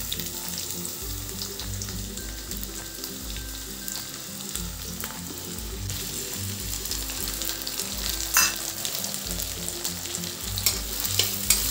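Chopped onions, tomatoes and grated ginger frying in hot mustard oil in a kadhai: a steady sizzling hiss, with a sharp click about eight seconds in.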